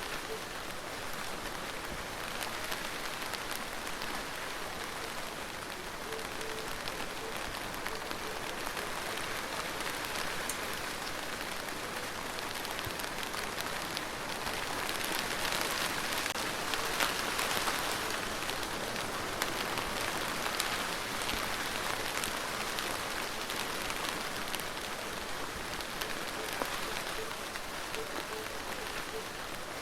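Steady rain falling on a surface, a dense even hiss with many individual drops ticking through it, swelling slightly louder about halfway through.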